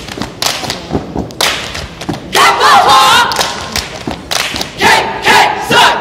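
A group step routine: a troupe of performers stomping and clapping together in repeated sharp thumps, with the group shouting a chant in unison, loudest a little past the middle and again near the end.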